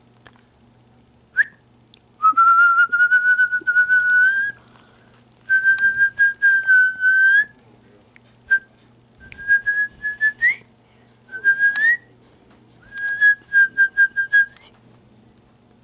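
A person whistling to call a resting dog: five held high notes of one to two seconds each, most ending in a quick upward flick, with a couple of short chirps between them.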